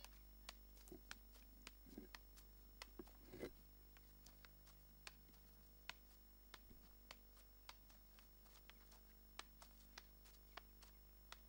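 Near silence: a steady low hum with faint, irregular clicks scattered throughout.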